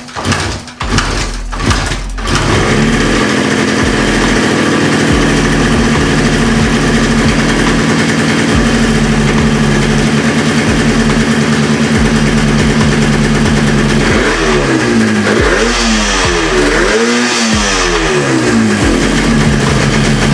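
Yamaha RD350's two-stroke parallel-twin engine being kick-started, catching about two seconds in and idling steadily on both cylinders, then revved three times near the end. It is the first start on a freshly fitted CDI ignition, with carburetors not yet tuned.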